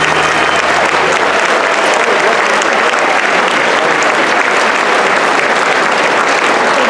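Large audience applauding steadily, with the last chord of the music dying away in the first second or so.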